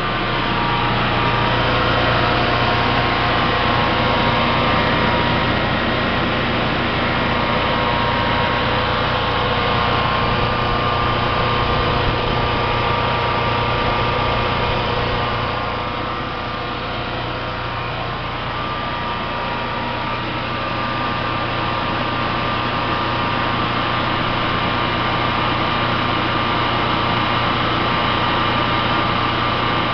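Generac Guardian 15 kW standby generator's engine running steadily at constant speed, dipping slightly in level about halfway through.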